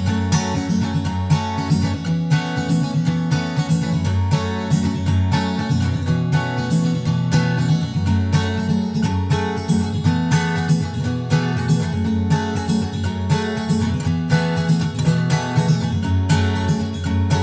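Background music led by strummed acoustic guitar, with a steady beat.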